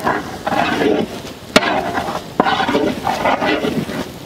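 A metal ladle stirs and scrapes shallots frying in a large aluminium pot, with two sharp clinks of the ladle against the pot, about a second and a half and two and a half seconds in. Pitched sounds carry on in the background.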